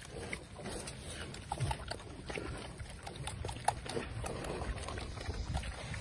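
Pigs grunting and rooting through dry leaf litter for scattered feed pellets, with short rustles and crunches.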